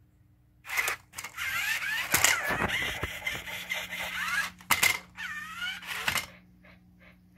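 Toy robot dog's small geared motors whirring and its plastic gears and limbs clattering as it pushes up into a handstand and drops back onto its feet, the motor whine wavering up and down. A few faint short pips follow near the end.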